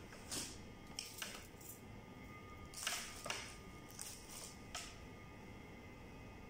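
Curtain fabric and its plastic wrapping rustling in short bursts as the pleats are handled to fit pin hooks.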